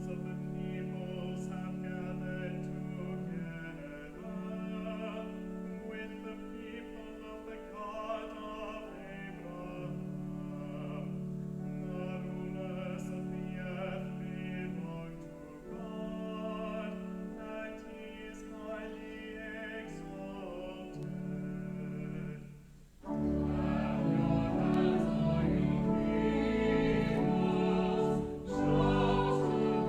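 Church music: singing over sustained organ chords. About two-thirds of the way through, it swells suddenly to a louder, fuller passage.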